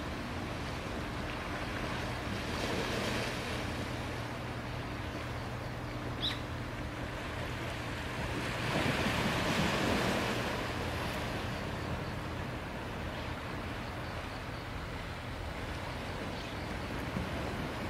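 Small waves of a calm sea washing onto the shore, swelling up twice, over a steady breeze. A single short high chirp comes about six seconds in.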